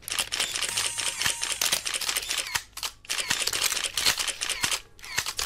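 Camera shutter sound effect clicking rapidly over and over, in runs broken by short pauses about two and a half seconds in and near the end.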